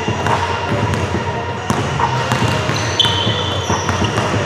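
A basketball bouncing on a gym floor with sneakers squeaking several times, over a background of people talking.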